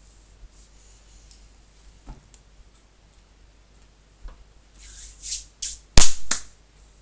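Scattered faint clicks, then near the end a cluster of rustling noises and sharp knocks, the loudest about six seconds in: something being handled close to the microphone.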